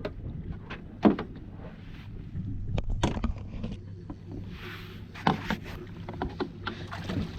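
Small boat afloat: a low steady hum with scattered knocks and clicks from gear being handled aboard, and a brief hiss about two-thirds of the way through.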